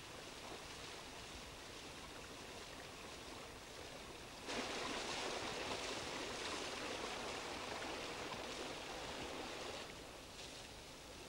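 Running water at a wooden water wheel, a steady rush that turns suddenly louder about four and a half seconds in and eases back near the end.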